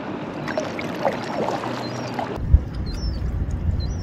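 Sea kayak paddling: water splashing and dripping off the paddle blades, with faint high chirps repeating throughout. About two and a half seconds in, the sound changes abruptly to a low rumble with a single sharp knock.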